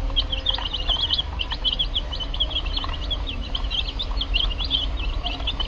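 A flock of chicken chicks peeping as they feed: many short, high chirps a second, overlapping and unbroken, over a steady low rumble.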